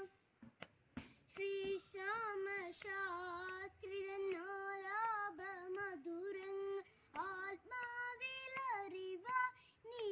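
A young boy singing solo and unaccompanied, a melodic line of phrases with wavering held notes, starting after a short pause.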